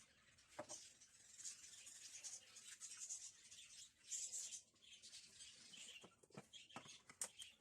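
Near silence with faint, irregular high-pitched chirping, as of small birds, and a few soft knocks.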